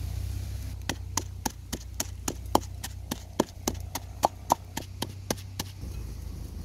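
Wooden pestle pounding salt and red chilies in a wooden mortar: a quick, even run of sharp wooden knocks, about four a second, that stops about five and a half seconds in. A low steady hum runs underneath.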